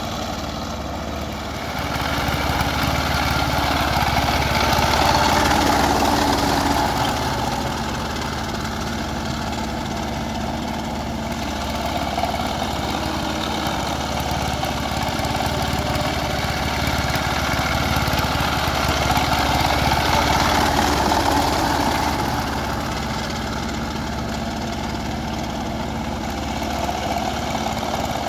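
Single-cylinder diesel engine of a two-wheel power tiller running steadily under load as its cage wheels churn through a flooded paddy field. It swells louder twice and eases back.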